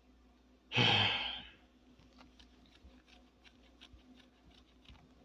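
A man sighs once about a second in, a loud breathy exhale that fades out over under a second, then only faint light clicks.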